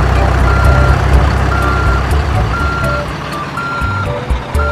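Truck reversing alarm beeping a single steady tone about once a second, each beep about half a second long, over the low rumble of a running truck engine.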